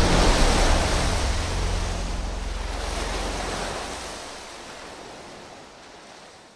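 Surf breaking and washing onto a stony shore, a steady rush of waves that fades out gradually.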